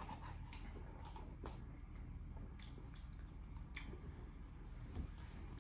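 A person chewing barbecue and collard greens, with soft, scattered wet smacks and clicks of the mouth.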